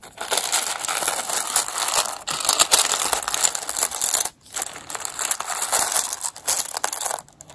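Fingers rummaging through a metal tin full of buttons: a dense clatter of buttons clicking against each other and the tin. It pauses briefly about four seconds in and stops shortly before the end.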